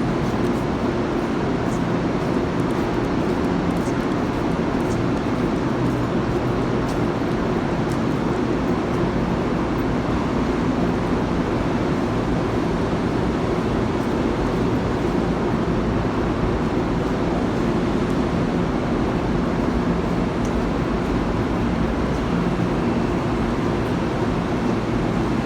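Steady drone of a Metro-North electric commuter train standing at a platform, a few low hum tones held level with no rise or fall, and an occasional faint click.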